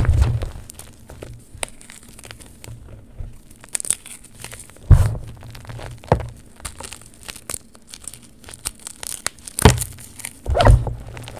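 Hands squeezing, crushing and raking through Friction Labs Super Chunky gym chalk in a tub: a steady soft crunching and crackling of powder and chunks. Louder muffled thumps come right at the start, about five seconds in, and twice near the end.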